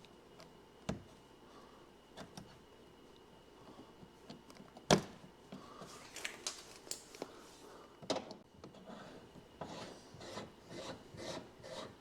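Hand scraping and rubbing on the plastic front bumper trim around a freshly enlarged tow-hook hole, with a few sharp knocks, then repeated short scraping strokes from about six seconds in.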